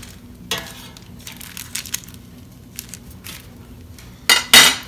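Metal kitchen tongs clicking and scraping against bratwursts and the parchment-lined air fryer basket as the sausages are turned. About four seconds in comes a loud, ringing double clatter as the tongs are set down on a plate.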